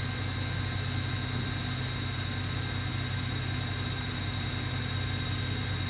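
Workshop air compressor running: a steady low hum with an even hiss.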